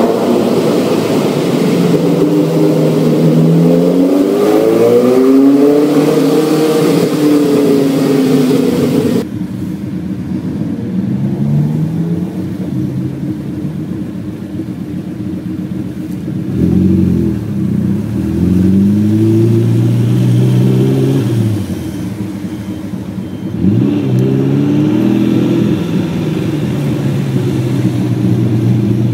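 TVR sports car engine and exhaust accelerating through the gears, its note rising and falling with each gear change. For the first nine seconds or so it rings off the walls of a road tunnel. After that it is heard on an open street, with fresh loud bursts of acceleration about 16 and 24 seconds in.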